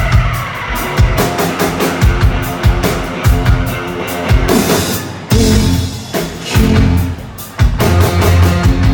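Live rock band playing loudly: drum kit and bass drum hitting in a steady beat under electric guitar, with no vocals. There is a short drop about halfway through, then the full band comes back in.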